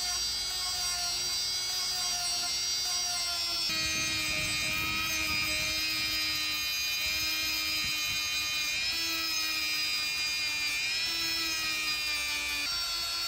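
High-speed handheld rotary tool with a small sanding drum sanding a cast metal housing: a steady high-pitched motor whine that shifts in pitch several times, about four seconds in, again near the middle and near the end, with a rough grinding hiss underneath.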